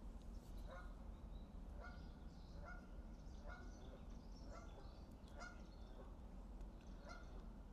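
Geese honking faintly, about seven short calls a second or so apart, with small birds chirping thinly above.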